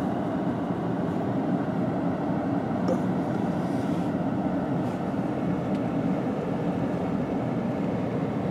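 Steady engine and road noise heard from inside a car cabin with the windows rolled up, as the car rolls slowly along.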